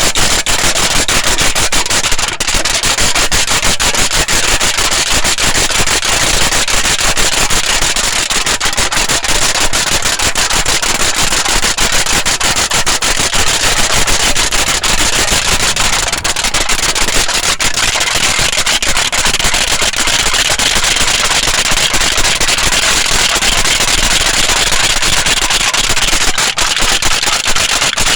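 Aluminium foil being crinkled and crumpled by hand close to the microphone, a loud, dense, continuous crackle of rapid clicks.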